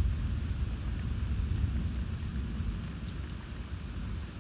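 Rolling thunder, a low rumble that is loudest at the start and fades away over a few seconds, over the steady hiss of falling rain.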